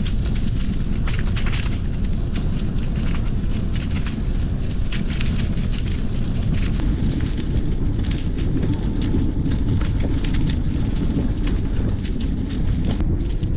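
Steady low wind rumble on the microphone and mountain bike tyres rolling over a packed unpaved trail, with frequent crackles as the tyres run over dry fallen leaves.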